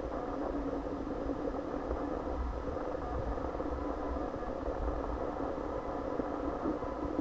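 Steady indoor room noise: a low rumble with an even hum and hiss, unbroken and with no distinct events.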